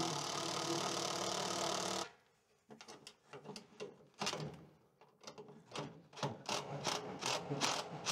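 Cordless drill-driver driving a screw into a timber brace, running steadily and then cutting off about two seconds in, followed by a run of short, irregular bursts.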